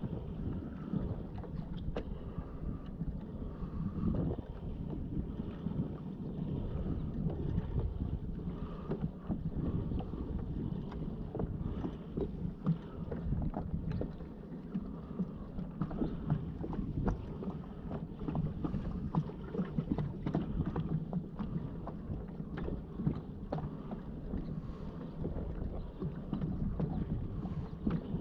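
Water splashing and knocking against a kayak's hull over a steady rumble of wind on the microphone, with scattered small irregular knocks.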